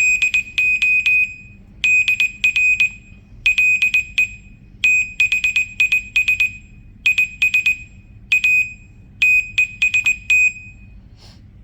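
Morse code played through a speaker: short and long beeps of one steady high tone, dots and dashes in groups separated by short pauses, spelling out the test message "Hello, Dr. Lay, this is a test." The beeps stop about a second before the end.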